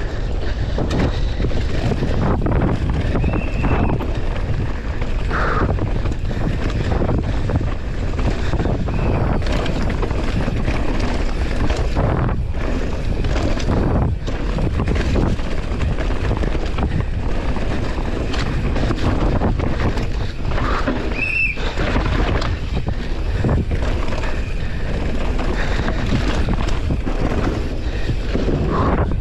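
Downhill mountain bike descending a dirt trail at race speed: wind buffeting the microphone over the rumble of the tyres and frame, with frequent knocks and rattles from bumps and a few brief high squeaks.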